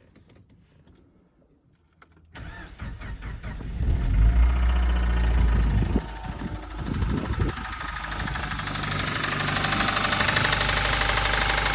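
Suzuki car engine starting about two seconds in and running, picking up revs, then settling into a rapid, even knock that grows louder toward the end. The owner takes the knock for a worn connecting-rod bearing shell or piston pin.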